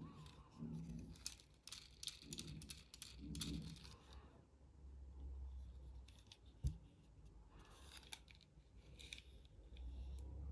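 Plastic and cardboard toy-car packaging being handled and opened: bursts of crackling, clicking and tearing, with one sharp knock about two-thirds of the way through.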